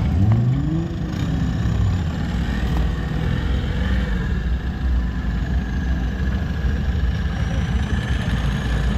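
Engine of a Suzuki-based off-road proto buggy revving up sharply and dropping back in the first second or so, then running on steadily at high revs.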